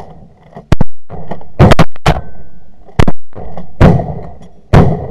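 Several shotguns firing a rapid, uneven volley, about seven loud blasts in five seconds, each with a short trailing echo, as a group of hunters shoots into a flock of snow geese.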